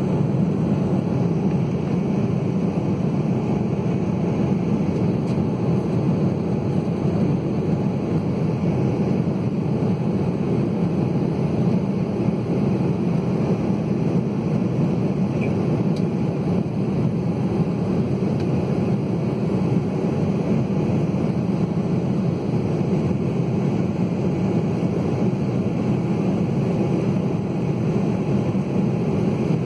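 Steady cabin noise of an Embraer 190 airliner in flight: an even, low rush from its twin GE CF34-10E turbofan engines and the air streaming past the fuselage, unchanging throughout.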